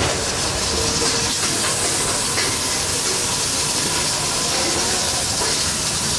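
Steady hiss of steam escaping from a row of aluminium pressure cookers on gas burners, as they vent past their weights at pressure.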